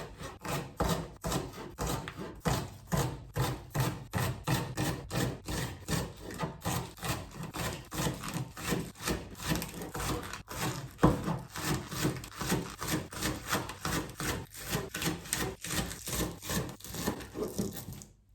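Kitchen knife chopping vegetables on a cutting board: a steady run of quick, even strokes, about three a second.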